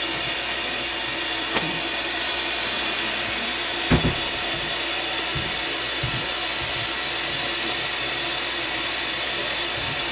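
Steady whooshing noise of a running air-moving machine, even and unchanging, with two soft knocks about one and a half and four seconds in.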